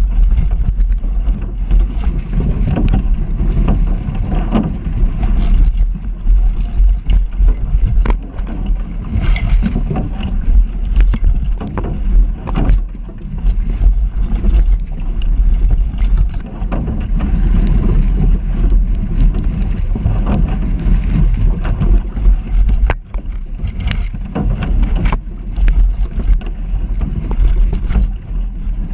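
Wind buffeting the microphone of a camera mounted on a small sailing dinghy, with water rushing and slapping against the hull as it moves through choppy water. Scattered sharp knocks run through it.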